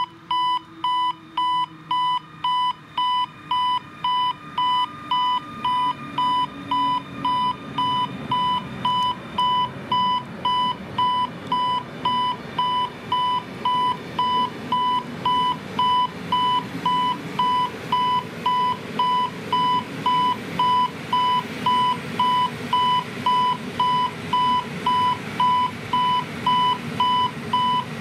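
A level crossing's EHL-S10 electronic warning sounder beeping steadily, about two beeps a second, signalling that the crossing is closed. A passenger train passes, and its running noise on the rails builds from about eight seconds in.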